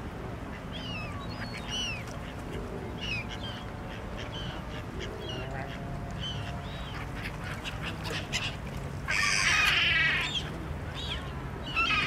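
Black-headed gulls calling on the water: short, falling calls every second or so, then a louder, harsh run of overlapping calls about nine seconds in lasting over a second, and another starting near the end.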